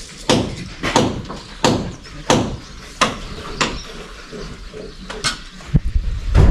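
Hammer blows on timber, evenly spaced at about one and a half a second, as roofing timbers are nailed in place. They pause briefly after about four seconds, then come again, with a heavier low thud near the end.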